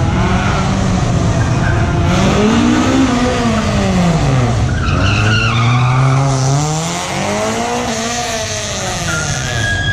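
Car engine driven hard through a cone slalom, revs climbing and dropping back several times, with brief tyre squeals about five seconds in.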